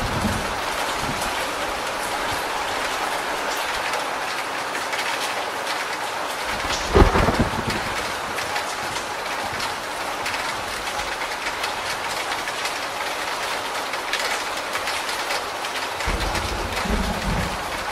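Steady rain pouring off the edge of a corrugated roof, the runoff splashing below. A single heavy thump about seven seconds in is the loudest moment, and a short low rumble comes near the end.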